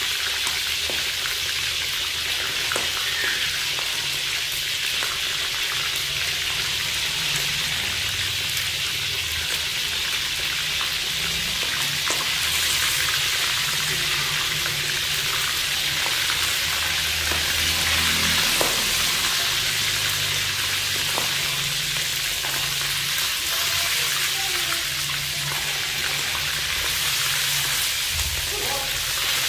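A whole frog frying in hot oil in a wok: a steady sizzle with small crackles now and then.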